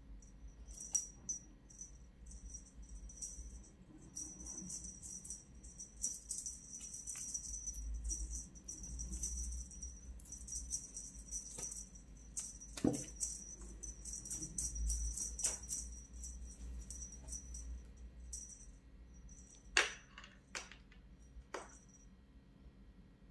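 Small bell on a feather wand cat toy jingling in shakes as the wand is waved about, with a few sharp taps near the end.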